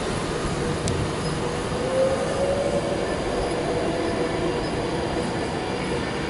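Class 321 electric multiple unit running through a station: a steady rush of wheels on rail with a faint whine.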